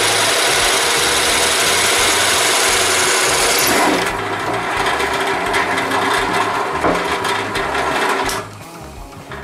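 Bench drill press boring through a walnut board with a 1-1/4-inch hole saw: a loud, steady cutting noise for about four seconds, then a rougher stretch with many small ticks, until the sound drops away sharply near the end.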